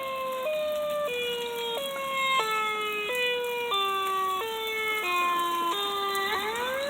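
Outdoor storm warning siren wailing up the street. Its pitch moves in small steps and sinks slowly lower, then rises again near the end.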